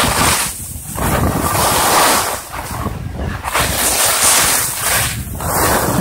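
Wind rushing over the microphone and skis scraping and hissing over packed snow on a downhill run, the rush swelling and easing every second or two.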